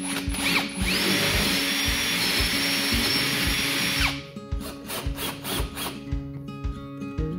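Power drill giving a short burst, then spinning up, running steadily for about three seconds and winding down as it drills or drives a screw into wood, over background music.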